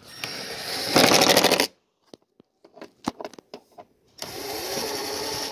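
Cordless impact driver running a bolt into the plastic air filter housing. It speeds up and then hammers loudly for about half a second as the bolt tightens, and cuts off. After a pause with a few light clicks, it runs again more steadily for about a second near the end.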